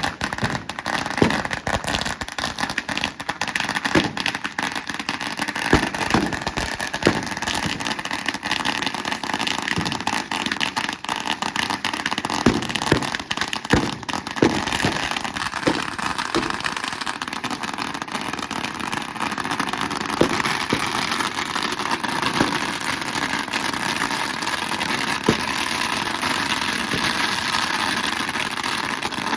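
Thousands of firecrackers going off together: a continuous rapid crackling and popping, with sharper single bangs standing out in the first half and settling into a denser, even crackle later.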